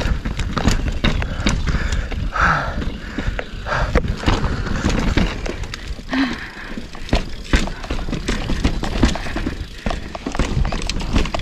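Mountain bike ridden over a rocky trail: tyres rumbling over stone, with frequent sharp clicks, knocks and rattles from the bike, under a low wind rumble on the microphone.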